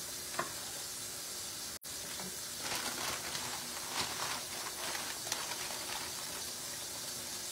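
A pot of creamy soup on the stove sizzling steadily as it simmers, with soft rustles and light taps from about two and a half seconds in as fresh spinach goes in. The sound drops out for an instant just under two seconds in.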